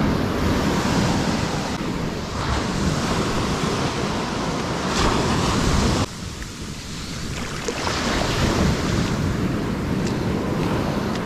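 Ocean surf breaking and washing up a sandy beach, with wind buffeting the microphone. The sound drops suddenly about six seconds in, then builds back up.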